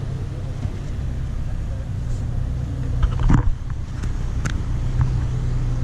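Ferry's engines running as a steady low drone, with a few short knocks and clicks about halfway through.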